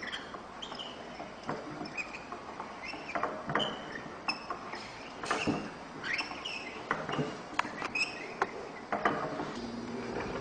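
A small mechanism model being worked, giving irregular clicks and knocks with short squeaks and creaks from its moving parts.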